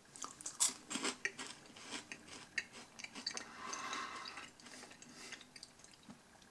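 A crispy chocolate-coated peanut wafer bar crunching, in quick irregular small clicks and crackles.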